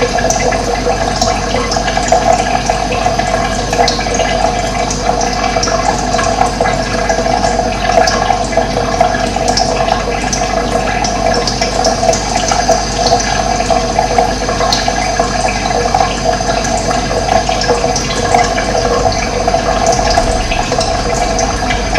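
Running water flowing with a steady, unbroken rush, dotted with small high splashes.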